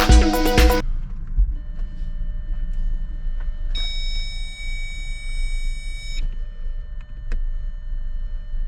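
Steady low hum with faint high steady tones. Near the middle an electronic tone sounds once, held for about two and a half seconds.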